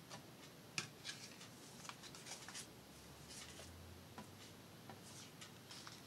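Faint, scattered rustles and light taps of paper craft pieces being picked up, set down on a cutting mat and pressed onto a journal cover.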